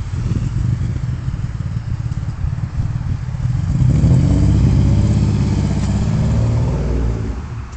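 Vectra V6 engine running with a misfire, its beat uneven. About four seconds in it is revved up and held, then it drops back near the end.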